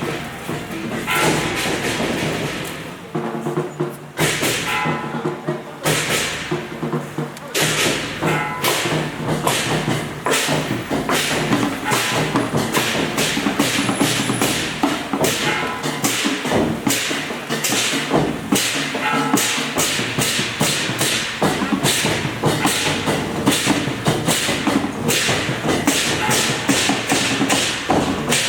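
Sharp bangs from a street procession, scattered at first and then several a second from about a third of the way in, mixed with music and voices.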